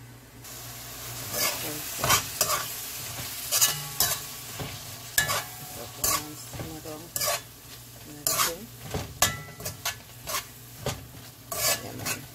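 Slotted metal spoon stirring and scraping against a metal pot, knocking against it at irregular intervals, while sliced peppers, onion and tomato sizzle quietly as they sauté.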